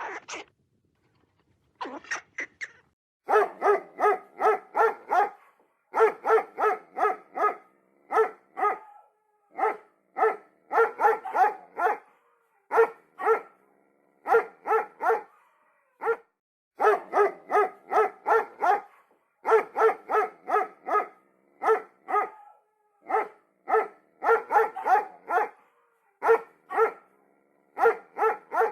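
Dog barking over and over in quick runs of several barks, with short pauses between the runs.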